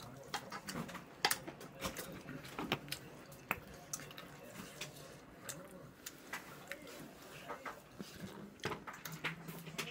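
Chewing kimchi fried rice with wet mouth sounds, and scattered sharp clicks of a spoon against a frying pan.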